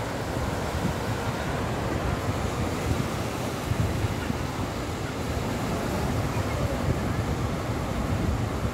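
Surf breaking steadily on a sandy beach, mixed with wind buffeting the microphone in a low, uneven rumble.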